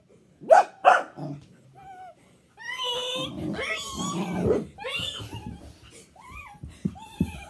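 Dog barking twice near the start, then a long run of excited pitched whining and yipping, with growly undertones, while playing roughly.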